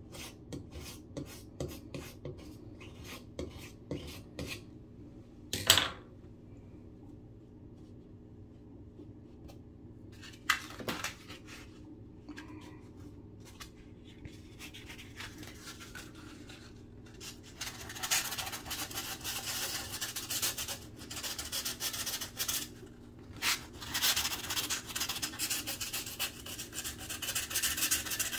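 Razor-blade scraper scraping at the glue-filled hole in a drywall patch in short strokes, one sharper scrape about six seconds in. From about eighteen seconds in, sandpaper rubs back and forth over the patch.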